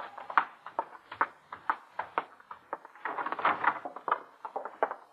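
Radio-drama footsteps sound effect: two men walking, a quick, even run of sharp steps with a denser clatter about three seconds in.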